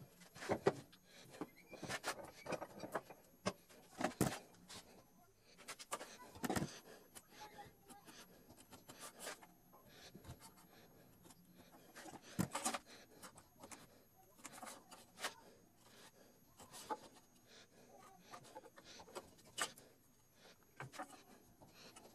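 Irregular knocks, taps and short scrapes of wooden boards and hand tools being handled and set down on a wooden workbench.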